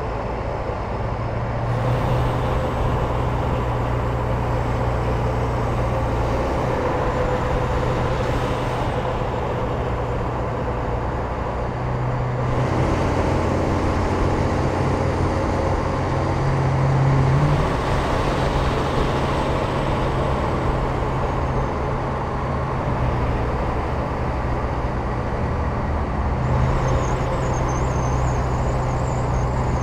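Diesel semi trucks (Peterbilt and Kenworth tractors) running steadily at highway speed, a low engine drone over road and wind noise. The engine note shifts a few times, briefly swelling about 17 seconds in.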